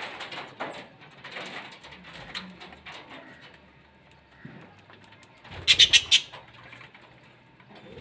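Budgerigars chattering and chirping, with a short loud burst of four sharp sounds about six seconds in.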